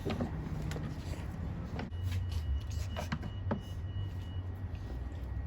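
A few short plastic clicks and knocks as a new air filter is pushed into place in the air filter housing, over a steady low hum.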